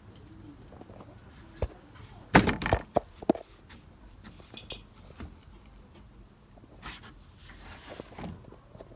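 A brief run of knocks and rustling about two and a half seconds in, with a single click just before it and faint rustling in straw bedding afterwards.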